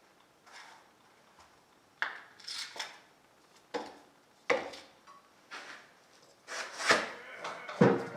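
Workshop parts being handled: after a quiet start, a series of irregular knocks, clunks and short scraping rubs, growing louder toward the end.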